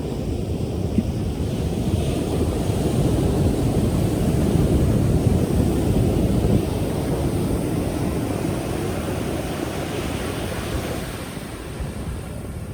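Ocean waves breaking and washing in: the surf noise swells over the first few seconds and slowly dies away toward the end.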